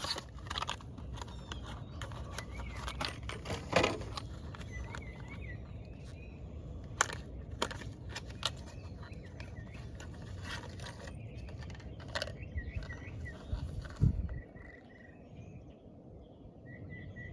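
Scattered light clicks and knocks of spark-plug parts and hand tools being handled, with a duller thump about fourteen seconds in. Small birds chirp faintly over a steady low outdoor rumble.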